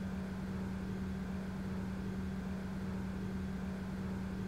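Steady low machine hum: one constant tone with a faint rumble beneath it, unchanging throughout.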